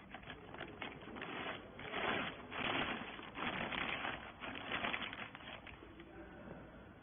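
Irregular clattering and knocking, densest in the middle and thinning out near the end.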